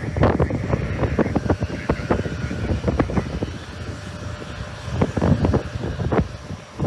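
Strong wind buffeting the microphone in rapid, irregular gusts, over the steady noise of jet airliner engines, with a faint engine whine in the first second or so.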